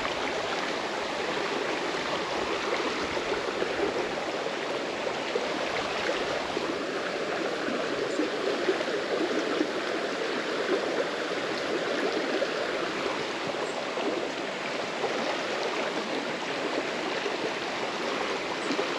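Shallow creek water running steadily over a rocky riffle: a constant, even rushing.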